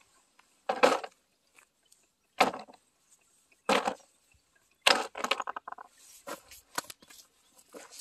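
Rocks dropped one after another into a plastic storage box onto a pile of other stones: a string of sharp stone-on-stone clacks, each with a brief ring from the box, the loudest four in the first half and a few lighter knocks after.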